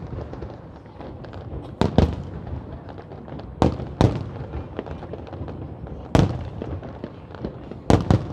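Aerial fireworks shells bursting: sharp bangs about every two seconds, several in quick pairs, with fainter pops and crackle between.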